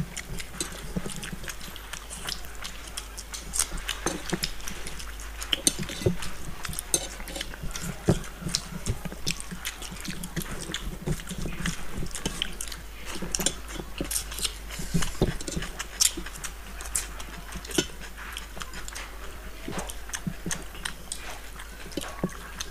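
Several people eating rice and fish curry with their hands: irregular wet chewing and mouth clicks, with fingers mixing rice against steel plates. A faint steady low hum runs underneath.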